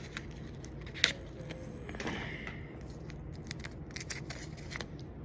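Small scattered clicks and light scraping, with one sharp click about a second in: a piece of gum being handled and chewed.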